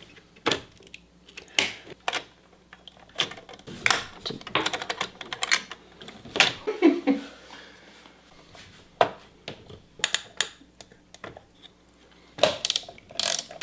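Irregular sharp clicks and clacks of hard plastic and metal computer parts being handled as a desktop PC is opened up for an upgrade.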